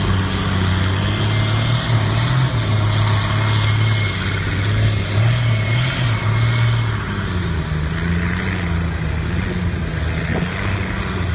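Pulling tractor's engine running hard under load as it drags a weight-transfer sled, a loud deep drone whose note shifts about seven seconds in.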